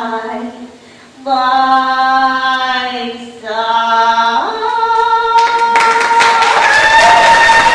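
A ventriloquist sings long held notes in her puppet's voice: three steady notes, then a slide up to a higher note that is held. Applause starts under the last note about five and a half seconds in.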